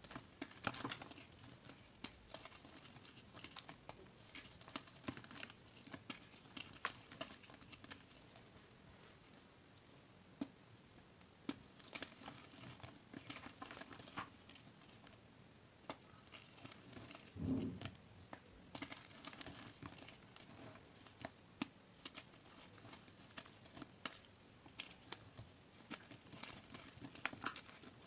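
Gym chalk chunks crushed and crumbled in the hands over loose chalk powder: soft, irregular crunches and crackles. A duller low thump comes a little past halfway.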